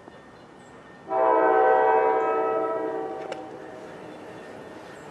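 Air horn of an approaching NJ Transit train led by ALP45-DP locomotive 4531: one long blast with several notes sounding together, starting about a second in and fading out after about two seconds.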